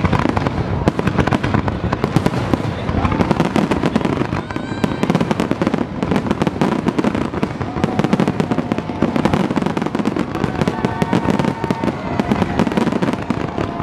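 Aerial firework shells bursting in a dense, continuous barrage: rapid overlapping bangs and crackling with no let-up.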